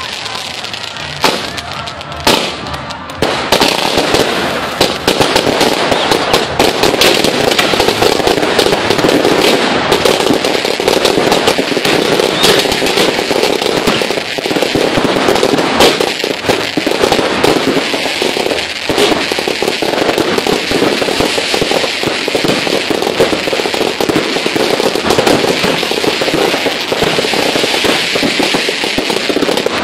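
Ground-launched fireworks firing in rapid succession: a few separate bangs at first, then from about three seconds in a dense, continuous barrage of bangs and crackling.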